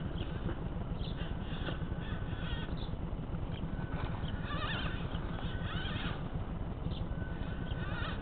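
Electric drive motor and gearbox of a radio-controlled rock crawler whining in short spurts as the throttle is worked, over a constant low rumble.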